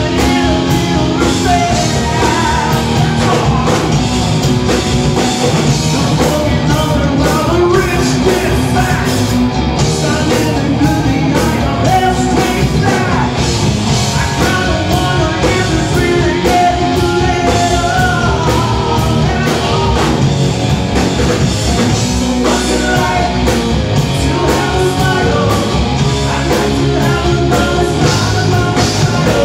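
Live rock band playing: distorted electric guitar, bass guitar and a drum kit, with a harmonica played into the vocal microphone and a male lead singer.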